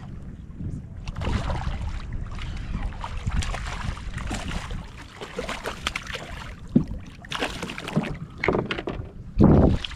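A hooked fish thrashing and splashing at the surface in irregular bursts as it is reeled to the boat, over wind rumbling on the microphone; the loudest splash comes near the end as the fish reaches the boat's side.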